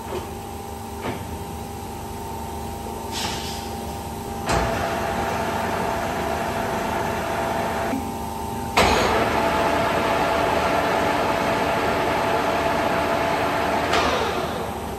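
Colchester Mascot 1600 gap-bed lathe running with a steady electric hum. About nine seconds in the spindle is engaged with a sudden clunk and the three-jaw chuck and headstock gearing run up loudly, then near the end the spindle is stopped and the sound falls away.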